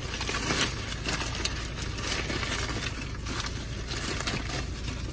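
Brown kraft-paper packaging crinkling and rustling in irregular bursts as hands rummage in it and pull out a plastic-wrapped packet.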